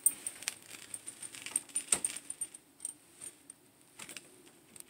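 Fluorescent light fixture switched on and starting up before the tube lights: a faint steady hum, with scattered light clicks and ticks.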